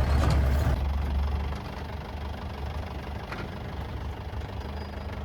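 Safari jeep's engine running with a low rumble, louder for about the first second and a half, then steadier and quieter.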